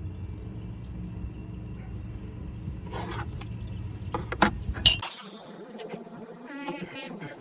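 A few sharp metallic clinks from an espresso machine's steel drip tray being handled and wiped with a cloth, over a steady low background rumble that cuts off about five seconds in.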